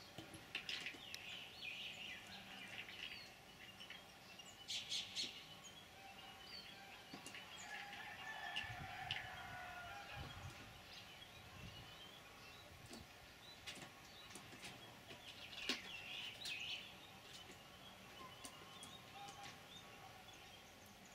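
Faint outdoor birdsong: many small birds chirping in short, scattered calls, with a few louder bursts of chirps, over a soft background hiss.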